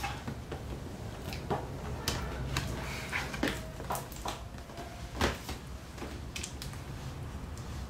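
Small cardboard box handled and turned over in the hands: scattered light taps, scrapes and rustles, the sharpest knock about five seconds in, over a low steady hum.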